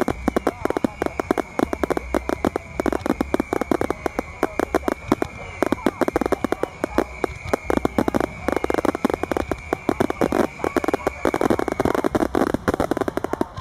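Fireworks display in a dense barrage: shells bursting and crackling many times a second without a pause.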